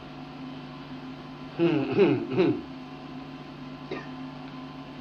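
Steady electrical hum on an old recording, with a brief murmured vocal sound from a voice about two seconds in.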